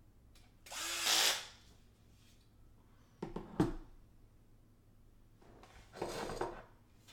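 Cordless drill running in two short bursts, about a second in and again about six seconds in, with a few sharp knocks of metal parts in between.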